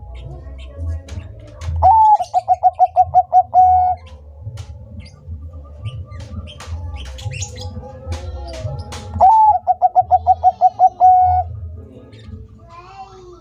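Bangkok-strain zebra dove (perkutut) singing two song phrases. Each phrase is an opening note followed by a rapid run of short pulsed coos: one starts about two seconds in and another just past nine seconds. Short, sharp chirps from other birds sound in between.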